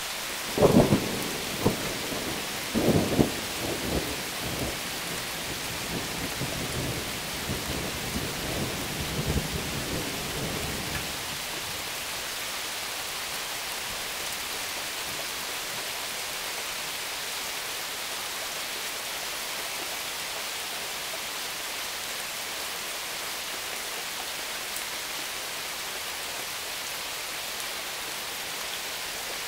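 Steady rain falling throughout. Thunder breaks about half a second in with several sharp cracks over the next few seconds, then rumbles on and fades out by about eleven seconds.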